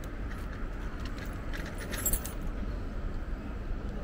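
Steady wind and road rumble from a moving electric bike, with light metallic jingling rattles scattered through it, the loudest cluster about two seconds in.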